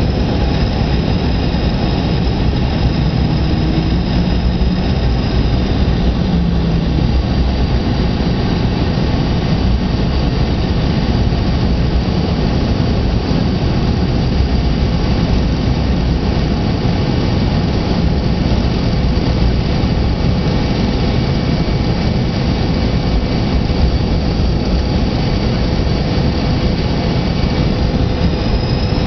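Cabin noise of a McDonnell Douglas DC-9-30 airliner on approach: the steady roar of its rear-mounted Pratt & Whitney JT8D turbofans and the airflow past the fuselage, with a thin steady whine above it.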